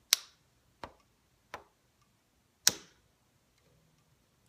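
Four sharp taps or knocks, spaced unevenly; the first and the last are the loudest.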